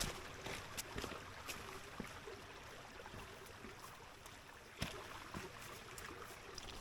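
A small mountain stream trickling and running, fairly faint, with a few scattered clicks and a sharper knock about five seconds in.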